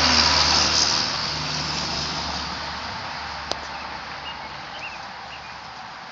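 A road vehicle going by, its engine hum and road noise loudest at first and fading steadily away. A single sharp click about three and a half seconds in.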